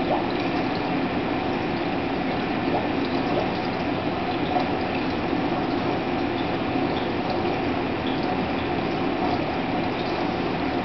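Reef aquarium's pumps and circulating water: a steady rush of moving water with a faint hum underneath.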